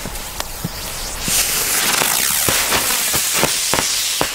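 Knallfrosch jumping jack firecracker from a Cobra assortment fizzing loudly as it burns, with a string of small pops that come quicker toward the end. The fizzing is louder than the bangs, a weak showing for this kind of firecracker.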